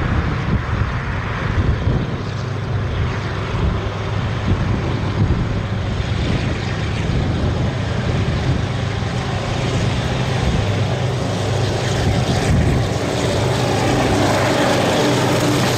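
DJ class diesel-electric locomotive under power, its Caterpillar V12 diesel engine giving a steady low drone that grows louder as the locomotive comes up and passes close by near the end.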